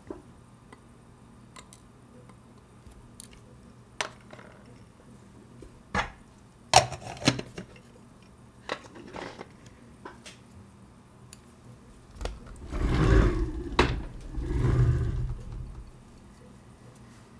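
Small sharp clicks and taps of steel tweezers and small tools on a bench and a plastic parts tray, scattered irregularly. Near the end, two longer swells of rustling noise, the loudest part.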